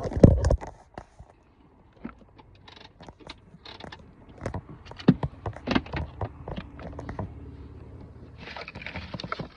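Handling noise from the recording phone as it is set in place: a loud knock at the start, then scattered clicks, taps and scrapes, with a faint steady low hum in the second half.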